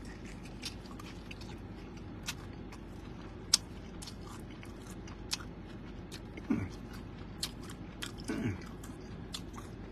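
Biting into a crisp, sauced fried chicken wing and chewing it, with scattered sharp crunches and wet mouth clicks. Twice, about two-thirds of the way through and near the end, a short hum falls in pitch.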